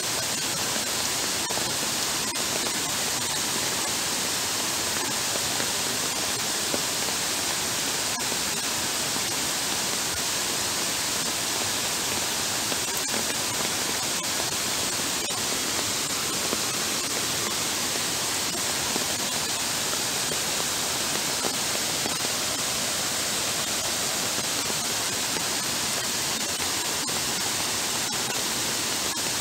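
Heavy rain pouring down in a steady, even hiss, mixed with floodwater running over a paved path.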